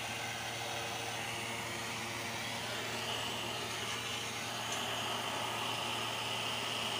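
Steady background noise with a constant low hum; a faint high whine comes in about three seconds in.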